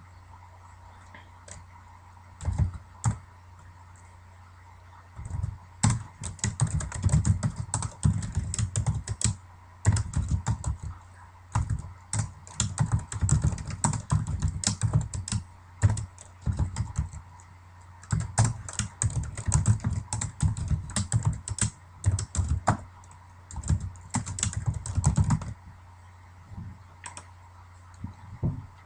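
Typing on a computer keyboard: a couple of keystrokes about two and a half seconds in, then quick runs of keystrokes broken by short pauses until shortly before the end. A steady low hum sits underneath.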